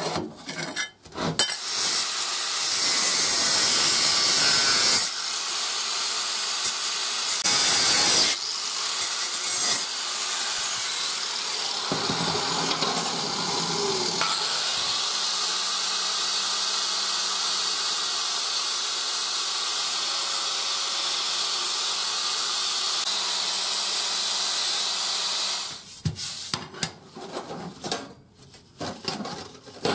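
Steady rasping of an abrasive power tool working steel plate, starting and stopping several times in the first half, then running unbroken for about ten seconds before it stops near the end. Light clinks of metal pieces being handled follow.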